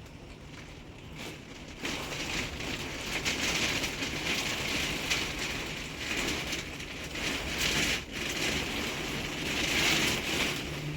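Heavy rain pouring down in a steady hiss, growing louder about two seconds in and swelling in waves, with another surge near the end.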